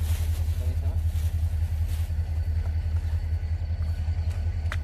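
Wind buffeting the microphone: a steady low rumble that pulses slightly, with one short click near the end.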